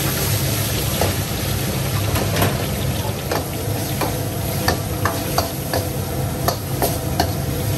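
Water spinach stir-frying and sizzling in a hot carbon-steel wok, with a dozen or so sharp clinks and scrapes as a metal ladle tosses it against the wok. A steady low rumble from the gas wok burner runs underneath.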